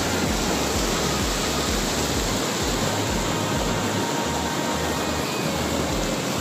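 Water rushing over a low stone weir and churning into white-water rapids: a steady, even rush.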